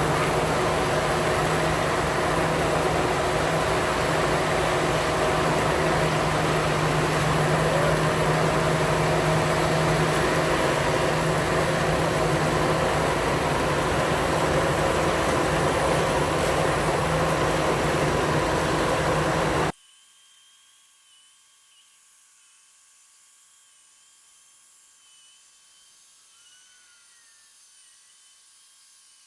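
A machine running steadily and loudly with a high whine over its running noise. It cuts off suddenly about twenty seconds in, leaving only a faint hum.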